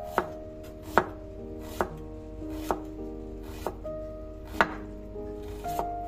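Chef's knife slicing a red onion on a wooden cutting board: a sharp knock of the blade striking the board about once a second.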